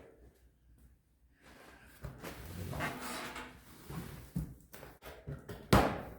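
Saw parts and packaging being handled during unboxing: about two seconds of rustling and scraping, a few small clicks, then one sharp knock near the end as something is set down.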